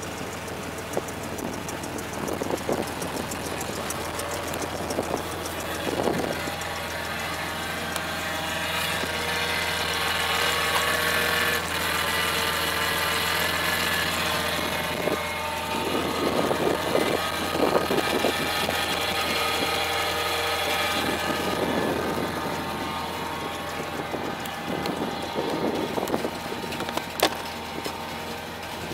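1973 GMC 6200 truck's six-cylinder gasoline engine running steadily, with a few louder swells and a sharp knock near the end.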